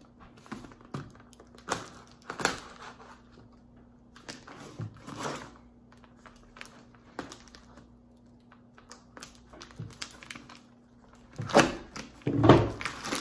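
A shipping package being opened by hand: scattered rustling, tearing and light knocks of packing material, with a few louder handling thuds near the end.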